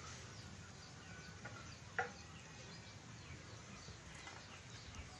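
Faint outdoor ambience at a fishing pond, with one short, sharp animal call about two seconds in and a few faint chirps.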